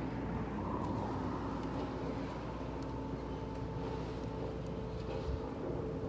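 Wind buffeting the microphone, a steady low rumble, with a faint steady hum underneath.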